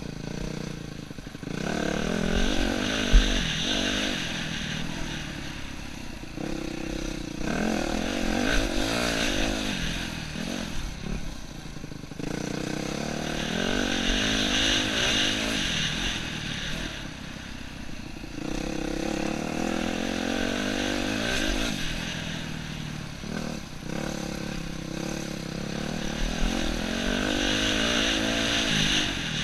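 Yamaha YZ250F dirt bike's four-stroke single-cylinder engine, heard from a helmet-mounted camera while riding a trail, repeatedly revving up through the gears and easing off. A few sharp knocks stand out over the engine.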